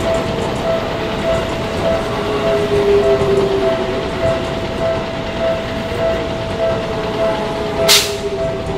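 Japanese level-crossing warning bell ringing in a steady repeating ding while an electric commuter train runs across, its wheels rumbling on the rails and a faint whine sliding slowly in pitch. A single sharp crack sounds near the end.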